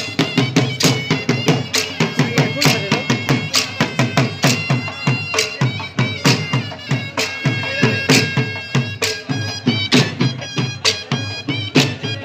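Live chap dance music: a dhol, a double-headed barrel drum, beaten in a steady driving rhythm under a sustained melody from a wind instrument.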